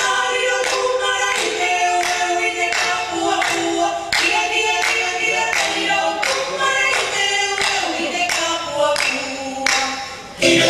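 A group of voices sings a Polynesian-style dance song over a steady beat of sharp strikes, about two a second. The sound dips briefly near the end, then comes back at full strength.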